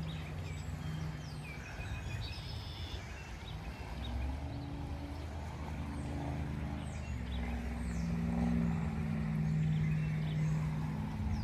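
A vehicle engine running steadily, its pitch shifting up a couple of times and getting a little louder toward the end, with faint bird chirps.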